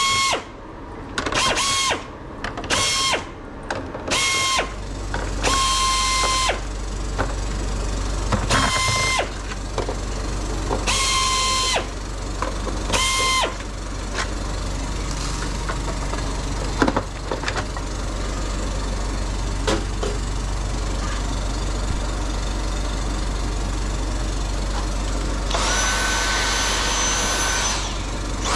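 Small electric screwdriver whirring in repeated short bursts, each whine dropping in pitch as the motor stops, as screws are run in or out one after another. A steady low hum comes on about five seconds in, and near the end a longer, higher-pitched motor whine sounds for a couple of seconds.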